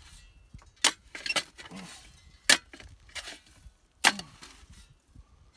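Shovel fitted with a piece of pipe for a handle digging into hard ground. It gives three sharp metallic strikes about a second and a half apart, with lighter clinks between.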